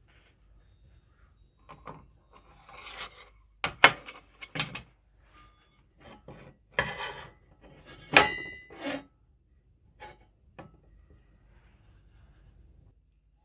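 A bare metal first aid tin being handled on a wooden tabletop: irregular scrapes and knocks of metal on wood. The sharpest knock comes about four seconds in, and a metallic clink about eight seconds in rings briefly.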